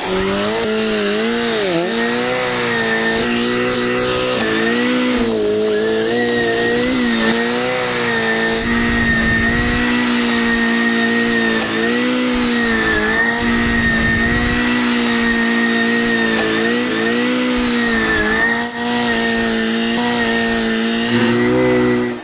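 A small motor running continuously, its hum dipping and recovering in pitch every second or two as the load changes, with a thin steady high whine above it.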